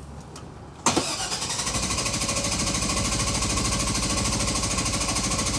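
The 2000 GMC Savana's 5.7 L small-block Chevy V8 is cranked on the starter for about five seconds with an even, rapid pulsing, starting about a second in, and never fires. This is the intermittent crank-but-no-start fault, for which lack of fuel pressure is suspected.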